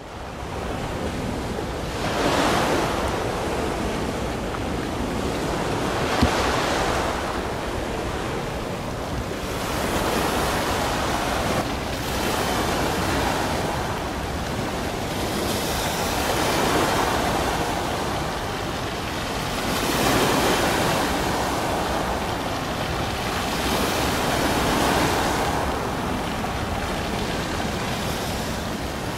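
Sea waves washing in, swelling and falling away about every four seconds, with wind rumbling on the microphone.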